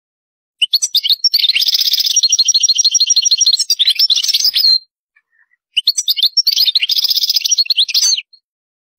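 European goldfinch singing: two phrases of rapid twittering trills, the first about four seconds long and the second shorter, after a pause of about a second.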